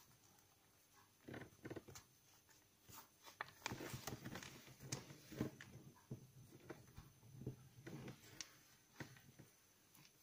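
Faint rustling and crinkling of origami paper being folded and creased by hand against a wooden tabletop, in irregular short bursts that are busiest in the middle.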